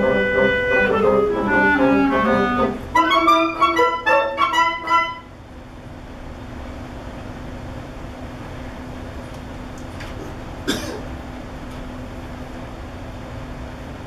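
Woodwind quintet playing sustained chords that turn into short detached notes, breaking off abruptly about five seconds in. After that only a steady low room hum, with a single sharp knock later on.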